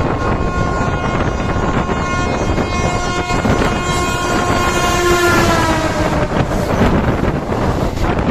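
Horn of an oncoming electric freight locomotive sounding several seconds as it approaches, its chord of pitches sliding down as it passes about halfway through. Then the freight wagons rush by on the next track, over the steady rumble and wind noise of the moving train.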